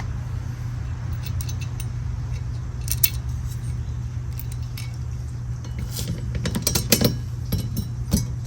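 Small metal hardware clinking and tapping as screws, washers and cone-shaped spacers are handled and set onto a metal door hinge, with a few scattered clicks and a busier run of clinks about six to eight seconds in. A steady low hum sits underneath.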